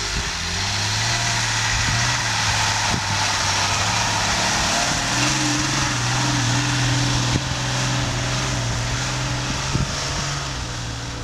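Off-road 4x4 SUV engine running under load as it drives through deep snow, its pitch stepping up about halfway through and easing near the end. A steady hiss sits over the engine, with a few brief knocks.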